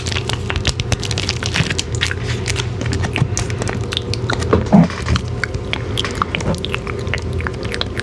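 Plastic KitKat candy wrapper crinkling and crackling as it is handled and pressed with long fingernails close to the microphone, in many small irregular clicks. One brief louder, lower sound comes about five seconds in.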